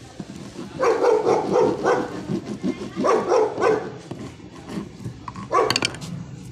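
A dog barking in two quick runs of barks, then once more near the end.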